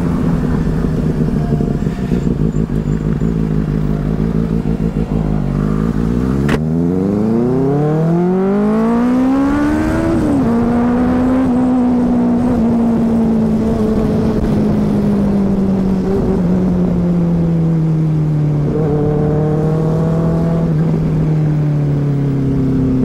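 Motorcycle engine under way: a steady engine note, then about six seconds in a click, and the revs climb hard for a few seconds. The revs drop sharply at an upshift about ten seconds in, and the engine settles into a steady cruise that slowly eases off.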